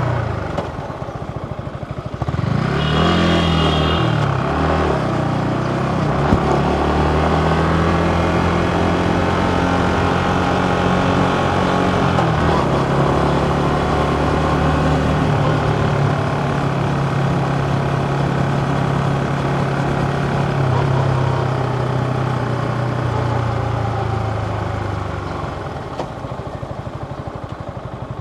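Yamaha MT-15's 155 cc single-cylinder engine accelerating hard about two seconds in, with a couple of brief breaks in the note, then holding a steady cruise. Near the end the engine eases off and the note drops.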